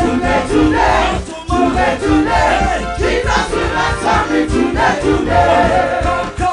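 Upbeat gospel praise-and-worship music with voices singing over a bass line and a steady beat.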